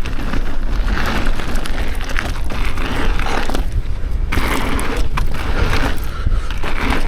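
Mountain bike riding a dirt trail at speed: tyres rolling over the ground and the bike rattling, with wind buffeting the microphone.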